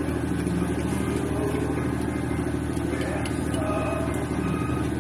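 Steady low drone of an idling engine or motor, with short high beeps repeating evenly in the second half.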